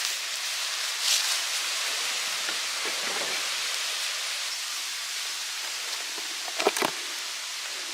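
Onions sizzling in a pan over a wood fire: a steady hiss, with a few light clicks about a second in and again near the end.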